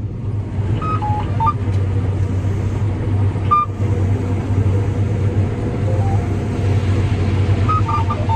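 Combine harvester running, heard from inside the cab, its steady low hum getting louder about half a second in as the machine is brought up to speed to resume harvesting corn. Short electronic beeps of a few different pitches sound from the cab about a second in, again around the middle, and in a quick cluster near the end.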